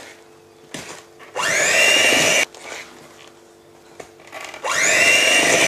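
Electric hand mixer beating flour into a thick cake batter; twice it spins up to a loud, steady whine lasting about a second, and runs quieter in between.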